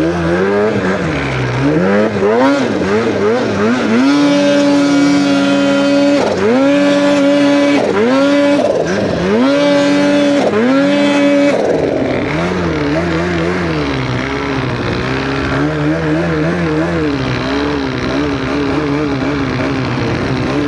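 Snowmobile two-stroke engine revving hard, held at high revs with several quick throttle lifts and recoveries. About halfway through it drops to lower, wavering revs.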